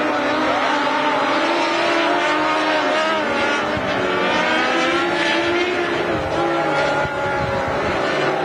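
A pack of Sportsman turf-tire race cars lapping a dirt oval, one of them running a Honda CBR 600 motorcycle engine. Several high-revving engines sound at once at different pitches, each rising and falling as the cars go through the turns and down the straights.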